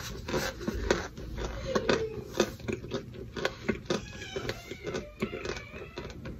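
Close-up chewing of mouthfuls of raw cornstarch: a dense run of small irregular crunches and clicks, with a plastic scoop digging into the powder.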